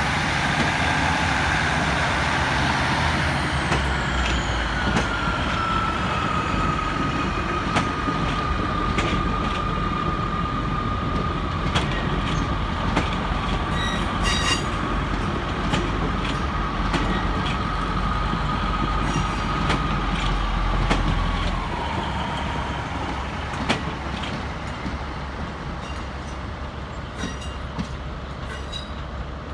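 Class 150 diesel multiple units moving slowly over curved pointwork: low diesel engine rumble with a steady high-pitched wheel squeal from the curves and scattered clicks of wheels over rail joints. The rumble and squeal die away after about twenty seconds, leaving it quieter.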